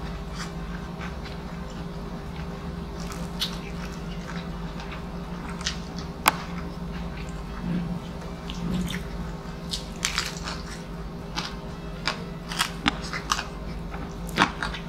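Mouth sounds of eating crispy pata (deep-fried pork knuckle): its skin gives scattered sharp crunches and crackles as it is bitten and chewed. A steady low hum runs underneath.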